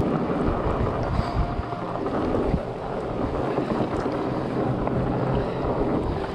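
Wind noise on the microphone over a steady low rumble of mountain-bike tyres rolling along a dirt trail.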